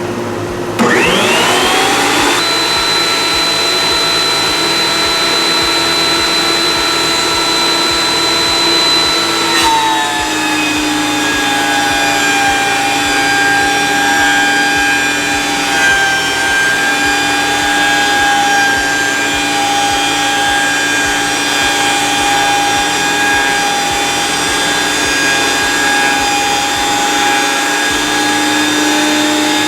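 Cutech 40800H benchtop planer starting up with a rising whine about a second in, then running steady. Near ten seconds its pitch drops a little and it runs on lower, as a board feeds through and the cutter head takes the load.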